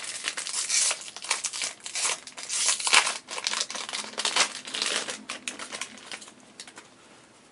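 Foil booster pack wrapper being torn open and crinkled by hand, a dense run of crinkling that thins out and fades about six seconds in.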